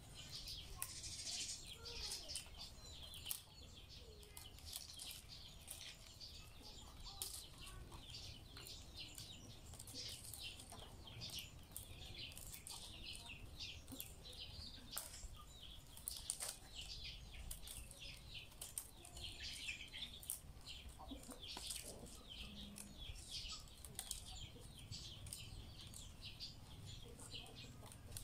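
Dry rattan strands rustling and clicking as a basket is woven by hand: an irregular run of light ticks and scrapes as the strands are threaded through the weave and pulled tight.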